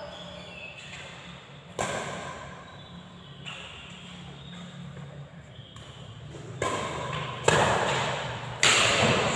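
Badminton rackets striking the shuttlecock during a rally: four sharp smacks with a ringing echo, one about two seconds in and three in quick succession near the end, over a low steady hum.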